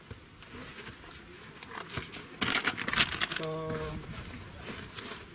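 Paper-banded bundles of 500-lei banknotes rustling and crinkling as they are handled and laid out on a car-boot mat. There is a louder rustle about halfway through, then a short steady tone lasting about half a second.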